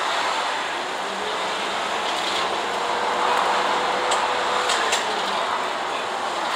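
Cabin noise of an Isuzu city bus driving at speed: a steady road and engine roar with a faint whine that rises and then falls. A few light clicks come about four to five seconds in.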